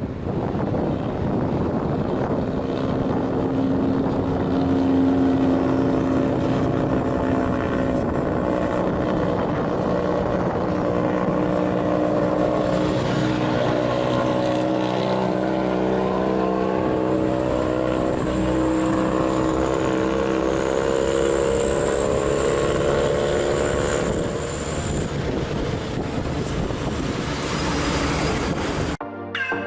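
Heavy truck's diesel engine labouring up a steep grade, a steady engine drone that an overload leaves short of power. A high whine joins in a little past the middle, and the sound cuts off abruptly near the end.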